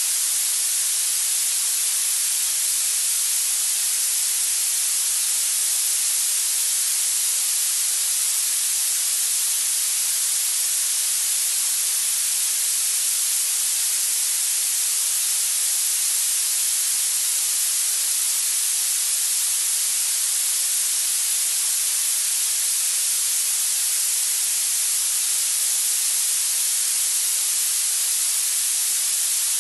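Steady, unchanging hiss of synthetic noise, strongest in the high treble and thin in the bass, played as a tinnitus masking and retraining sound.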